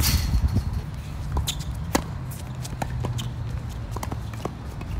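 Tennis rally on an outdoor hard court: sharp pops of racket strings striking the ball and the ball bouncing, mixed with shoe scuffs, over a low steady rumble.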